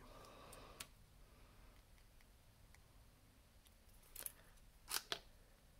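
Near silence with a few light clicks from handling plastic press-on nails and the nail-glue bottle: a faint tap near the start, one click about four seconds in, and a sharper pair about a second later.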